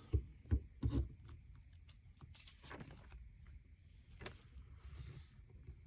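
LEGO plastic pieces being handled and pressed together: three sharp little clicks in the first second, then faint scattered clicks and light rubbing.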